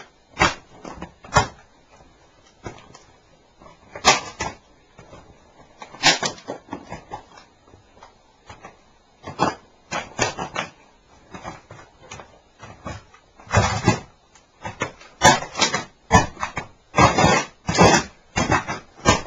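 A plastic cassette recorder being stomped and crushed under motocross boots: irregular cracks, crunches and creaks of breaking plastic and parts. The crunching comes sparsely at first, then thick and loud in the second half.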